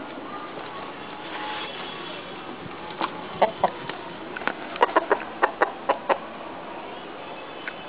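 Chickens clucking faintly over a steady hiss. About three seconds in comes a quick run of sharp taps, around ten in three seconds, which are the loudest sounds.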